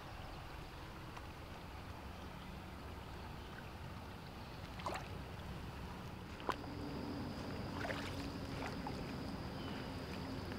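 Shallow stream water running and lapping, with a steady low rumble and a few sharp clicks, the loudest about six and a half seconds in.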